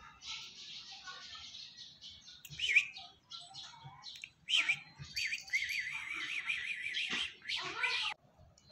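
Birds chirping and singing, with sharp high chirps and a quick warbling trill.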